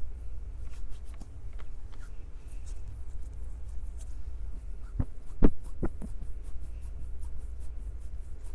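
Hands gripping and squeezing a Tascam recorder's microphones close up: scattered soft clicks and rubs over a steady low handling rumble, with a cluster of louder taps a little past halfway.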